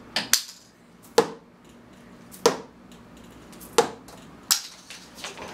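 Darts thrown one after another thudding into a corkboard mounted on a wall: about six sharp thunks, roughly one every second.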